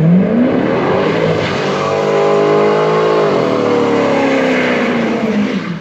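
Chevrolet Corvette V8 revving hard during a burnout donut, rear tyres spinning. The engine pitch climbs at the start, holds high, then falls away after about three seconds, over steady tyre noise.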